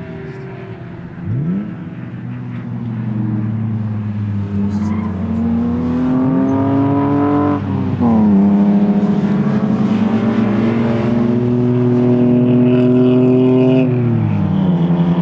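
A car's engine at full throttle on a race track, its revs climbing steadily through a gear, dropping sharply at a shift about halfway through, then climbing again before falling near the end.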